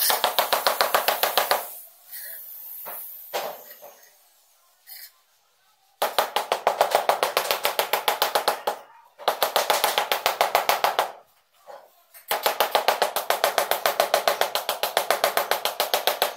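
Rubber mallet tapping a large floor tile to bed it level into the mortar: runs of quick, even taps, about five or six a second, with short pauses between runs.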